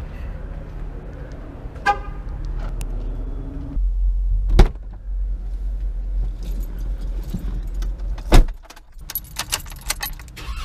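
Someone getting into a Jeep Wrangler. There is a short beep about two seconds in, then two heavy clunks of the driver's door, the louder one the door shutting about eight seconds in. Near the end come jangling keys and clicks.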